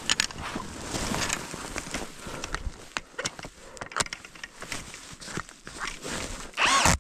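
Footsteps crunching through snow, irregular, with a louder burst of noise near the end.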